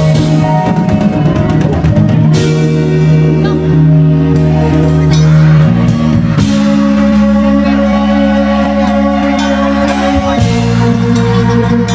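A live band playing: held keyboard chords over a drum kit. The chord changes about six seconds in and again about ten and a half seconds in.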